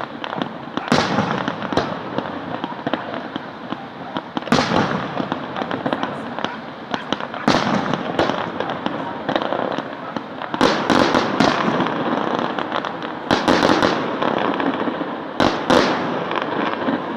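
Fireworks going off: sharp bangs every one to three seconds, some in quick pairs and clusters, over continuous crackling.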